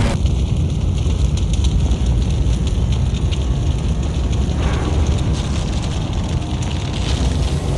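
A loud, steady low rumble with faint crackling over it.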